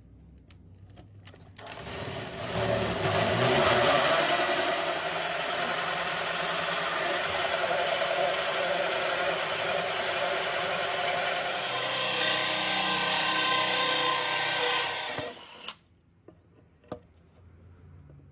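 Power drill driving a double hole saw, a smaller saw mounted on the same arbor as a guide for a larger one, cutting to enlarge a hole. The drill runs steadily for about fourteen seconds, then stops suddenly, with a few sharp clicks just before it starts and after it stops.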